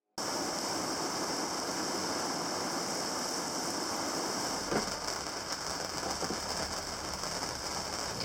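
A steady, even hiss that cuts in suddenly just after silence, with a single faint click about five seconds in.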